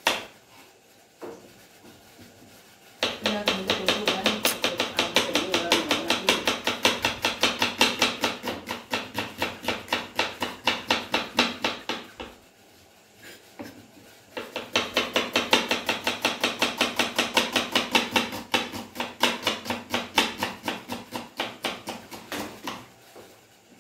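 Kitchen knife chopping an onion on a wooden cutting board: two long runs of rapid, even strokes with a short pause between them.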